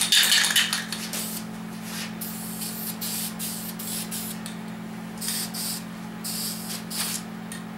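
Aerosol spray paint can hissing in several short bursts, spraying black paint onto cylinder heads.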